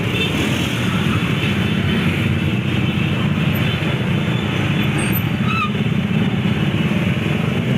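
Many motor scooter and motorcycle engines running together in a slow-moving convoy, a steady dense rumble without a break.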